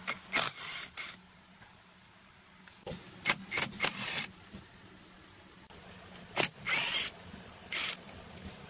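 Metal tools and engine parts being handled: scattered clinks and short scrapes in a few clusters, over a faint steady hum.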